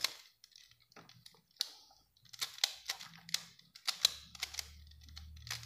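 Plastic clicks of a Duomo Pyraminx puzzle's layers being twisted in quick, irregular turns as it is scrambled.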